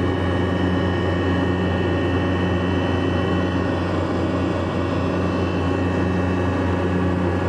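Steady hum of an electric motor in workshop machinery running continuously, with a strong low drone and a few steady higher tones.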